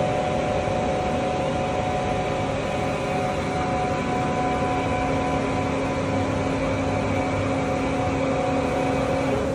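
Steady hum of powered machinery, with several steady tones over a constant noise; a lower tone joins about four seconds in.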